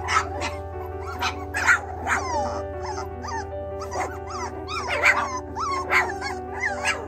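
A litter of four-week-old mini goldendoodle puppies whining and yipping in many short, high calls that bend up and down in pitch, over steady background music.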